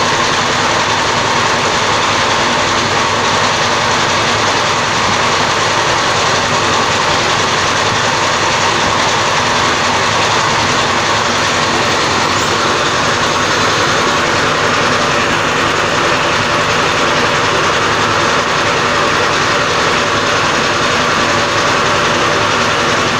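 Cummins diesel engine running steadily at a constant speed, with no change in pitch or level.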